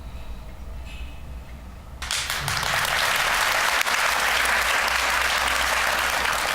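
Studio audience applauding, starting abruptly about two seconds in; before that only a low, steady hum is heard.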